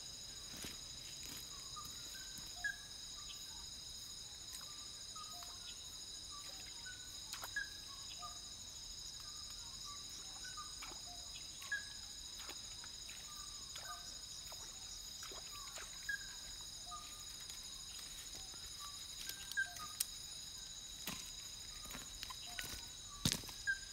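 Night-time tropical forest chorus: insects such as crickets keep up a steady, high-pitched shrill, while short chirping calls from another animal repeat every second or so. Scattered sharp clicks break in, the loudest near the end.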